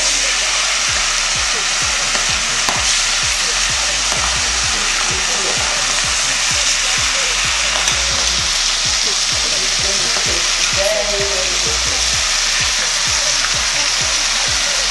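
Seasoned fish pieces frying in a pot of hot vegetable oil: a loud, steady sizzle full of fine crackling pops.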